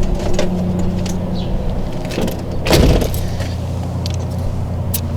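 A brief hiss of air a little under three seconds in as a tire pressure gauge is pressed onto the valve stem of the freshly plugged tire, over a steady low mechanical hum and a few light metal clicks.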